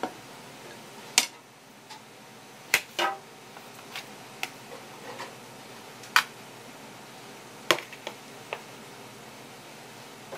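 Irregular sharp knocks and clicks of kitchen work: utensils set down and tapped against a cutting board and counter, about nine in all, the loudest about a second in, near the middle and about three-quarters through.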